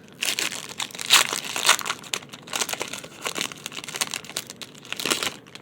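Trading-card pack wrapper crinkling as it is handled and opened, a dense run of irregular crackles that stops shortly before the end.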